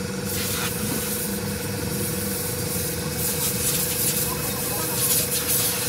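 Steady mechanical hum with a constant thin whine, like a machine running.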